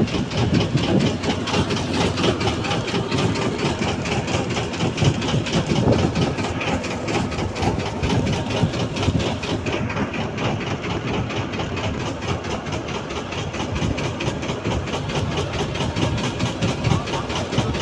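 Fishing boat's engine running steadily with a rapid, even beat.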